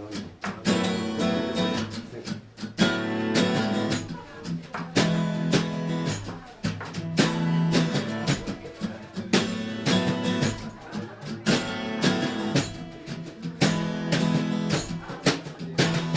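Acoustic guitar strummed in a steady rhythm of chords, a song's instrumental opening without singing.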